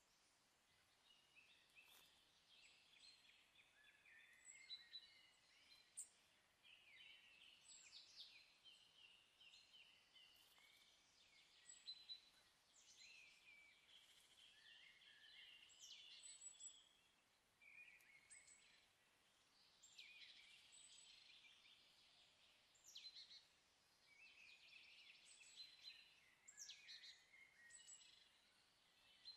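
Faint birdsong: several birds chirping and trilling in quick, overlapping phrases.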